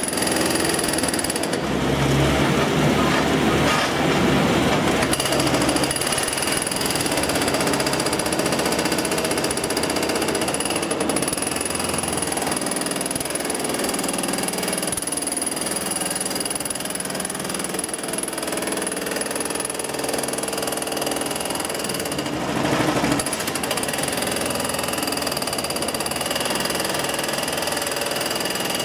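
Brokk 800 demolition robot's hydraulic breaker hammering rapidly and continuously at the slag built up on a steel ladle's mouth, knocking it loose. It is loudest for a few seconds near the start and in a brief surge about two-thirds of the way through.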